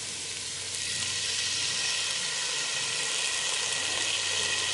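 Diced onion sizzling in hot oil in a stainless steel stock pot, the sizzle growing louder about a second in as minced garlic is added.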